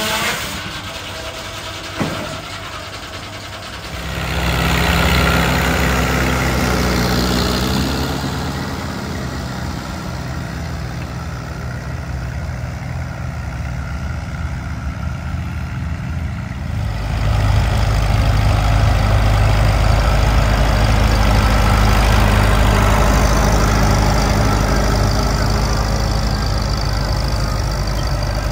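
Antique tractor engines running steadily, with a sharp click about two seconds in. One engine grows louder about four seconds in, and a louder, lower-pitched engine takes over about seventeen seconds in.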